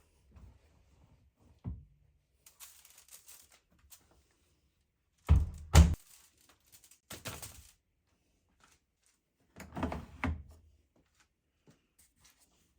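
Objects being handled and set down in a small room: a few knocks and thuds, the loudest a pair about five and a half seconds in, with softer clatters after them.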